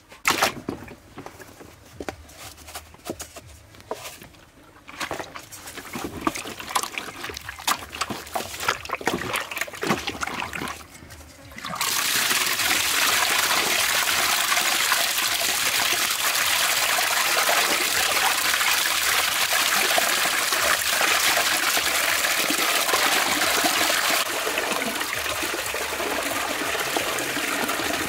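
Hands washing raw beef intestines in a tub of water: scattered sloshing and splashing, then about twelve seconds in a tap starts running steadily onto the meat, splashing into the basin.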